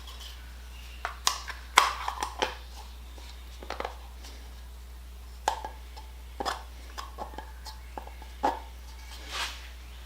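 Scattered sharp clicks and knocks of small parts and tools being handled on a workbench, loudest in a quick cluster about a second or two in, over a steady low hum.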